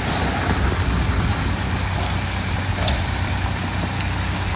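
An engine running steadily: a continuous low rumble with a few faint ticks and knocks over it.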